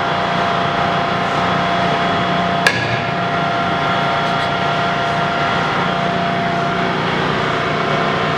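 Heavy Axelson 39" x 108" engine lathe running with a steady gear-drive hum made of several constant tones. A single sharp metallic clack comes about two and a half seconds in while the tailstock handwheel is being worked.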